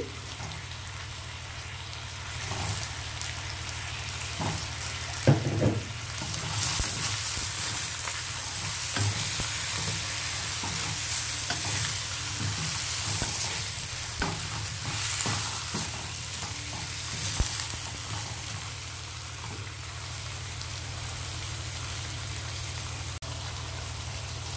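Eggplant pieces frying in hot oil with tomato and spices, sizzling steadily while being stirred, the sizzle swelling louder for several seconds in the middle. A few sharp knocks of the utensil against the pan.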